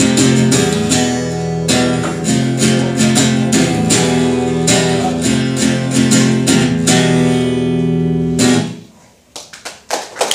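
Acoustic guitar strummed in steady chords, the song's outro, stopping about eight and a half seconds in. A moment later scattered hand clapping begins as the applause starts.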